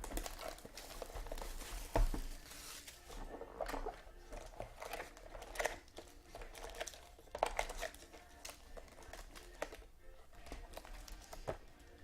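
Plastic wrapping of a trading-card box and its packs crinkling and tearing in irregular crackles as they are opened, with a soft knock about two seconds in.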